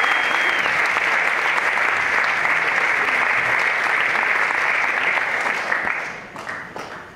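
Audience applauding steadily, then dying away over the last second or two with a few last scattered claps.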